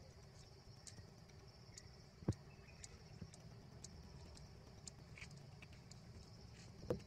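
Faint outdoor ambience: a steady high insect drone with faint regular ticks, broken by a sharp knock about two seconds in and another near the end.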